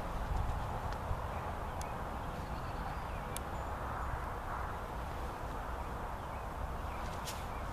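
Wind buffeting the microphone, a steady uneven rumble, with three faint sharp clicks spread through it.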